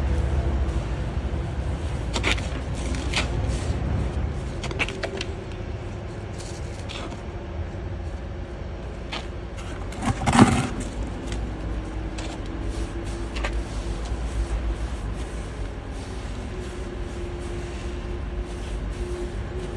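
Work-site ambience: a steady low rumble with scattered clicks and knocks, the loudest single knock about ten seconds in.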